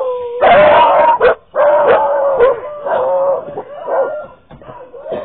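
Puppy howling and yelping close to the microphone: two long, wavering cries, then shorter, weaker yelps.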